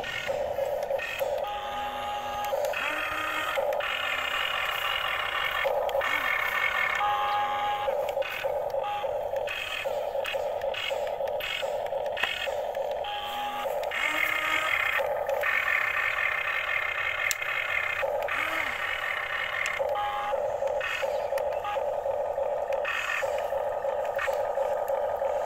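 XCMG remote-control toy excavator at work: its small electric motors whir in short stop-start runs as the boom, arm and bucket move.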